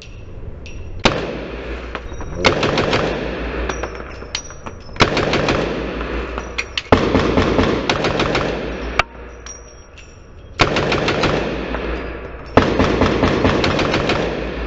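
An AR-pattern carbine fired on full auto in several short bursts of rapid shots, echoing in an indoor range, with a pause of a second or so in the middle.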